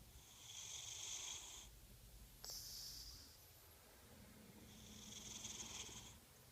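A sleeping cat snoring faintly: three hissy breaths about two seconds apart, the second starting with a sharp click.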